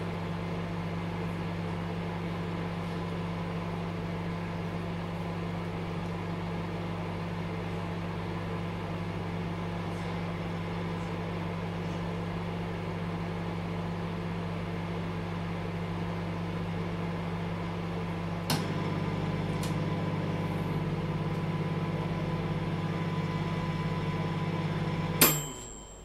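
A dial-timer microwave oven running with a steady electric hum. About two-thirds of the way through it clicks, and the hum becomes slightly louder. Near the end a sharp ding rings out, typical of the timer running out, and the hum stops.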